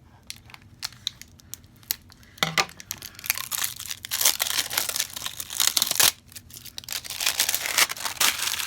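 Crinkly plastic packaging being handled and torn open: a few small crackles at first, then steady loud crinkling and tearing from about two and a half seconds in, with a brief pause about six seconds in.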